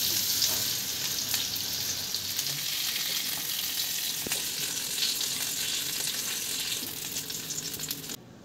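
Whole mackerel frying in hot oil in a pan: a steady sizzle with scattered sharp pops and crackles, and the wooden spatula working the fish. The sizzle cuts off abruptly near the end.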